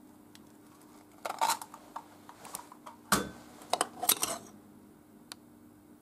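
Eggshell being pulled apart and the egg dropped into a small stainless-steel egg separator, with light metal clinks of the separator against the steel cup beneath it as the white drains from the yolk. A scatter of clicks and clinks, the sharpest about halfway through.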